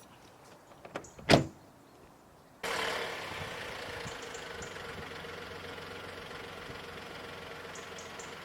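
A car door slams shut once, then a car's steady running noise and hum starts suddenly and carries on.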